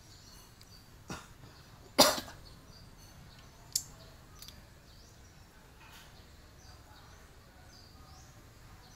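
Faint outdoor background with small high bird chirps, broken by three short sudden sounds about one, two and nearly four seconds in. The loudest, about two seconds in, is a brief cough-like burst.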